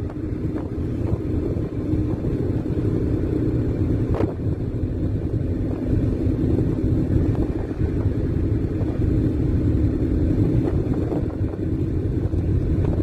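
Steady low rumble of a car's engine and tyres on the road, heard from inside the moving car's cabin. There is a brief click about four seconds in.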